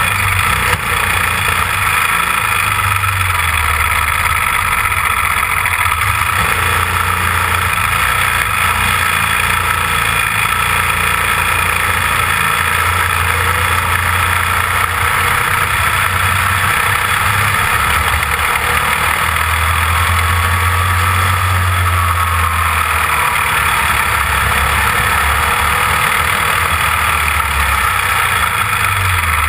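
Caged dirt-track racing kart's small engine running at low speed, heard from a camera mounted on the car: a steady drone under a constant rush of noise, its pitch shifting up and down a little now and then.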